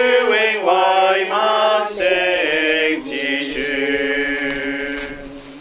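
Slow unaccompanied singing of a Chinese hymn refrain in long held notes, closing on a long sustained note that fades out near the end.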